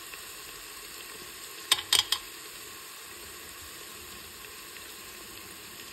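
Spiced onion masala frying in oil in a pan, a steady sizzle, with a quick cluster of three or four sharp clicks about two seconds in.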